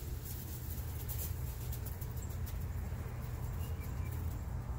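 Faint rustling of straw and feathers as a hen sitting in a straw nest is stroked by hand, over a steady low rumble.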